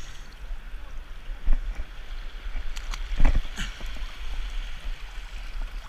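Small sea waves lapping and sloshing over a shallow rock shelf, with wind rumbling on the microphone. A brief louder knock or splash comes about three seconds in.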